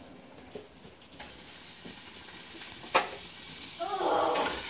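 Pork chops sizzling as they fry in a covered pan. The sizzle starts about a second in, with a single sharp metal clank about three seconds in.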